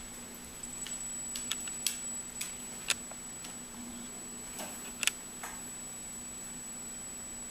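A German Shepherd's claws clicking and tapping on a hardwood floor as it walks up to the scratcher board, a handful of sharp irregular ticks, most of them in the first three and a half seconds.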